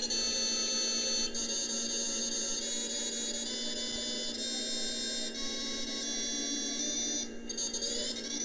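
Simulated CNC lathe spindle and cutting whine from the lathe simulator software during a G71 roughing cycle. It is a high, steady whine that shifts pitch in steps every second or so as the tool makes its passes, drops out briefly about seven seconds in, and rises in pitch near the end.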